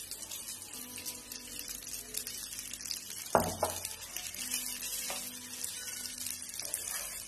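Penne, cherry tomatoes and garlic sizzling in hot olive oil in a non-stick frying pan, with a steady fine crackle. About three and a half seconds in there is a single sharp knock, and near the end a wooden spatula stirs the pasta.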